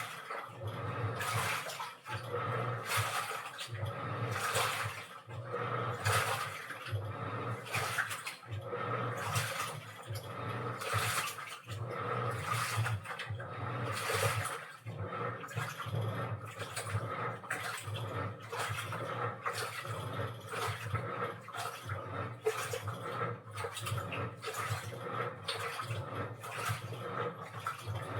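Washing machine mid-wash: water sloshing in the turning drum in rhythmic surges about once a second, over a low motor hum that comes and goes with the drum's turns.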